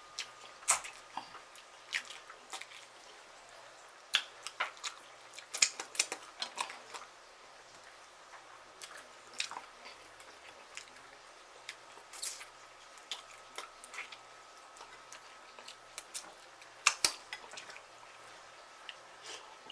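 Close-miked eating: chewing with wet lip smacks and sharp mouth clicks coming irregularly, in clusters.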